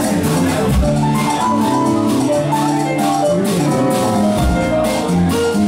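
Live funk band playing an instrumental passage: drum kit keeping a steady beat under bass guitar and keyboard lines, with no singing.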